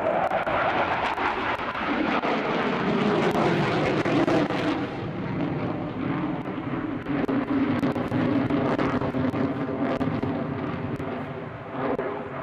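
Panavia Tornado jet flying manoeuvres, its two RB199 turbofan engines loud and steady. A pitch in the engine noise drops over the first few seconds and then holds level, and the sound eases slightly near the end.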